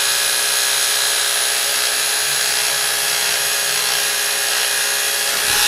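Electric animal hair clippers running steadily, the blade working through a hard, dried mat of rabbit fur.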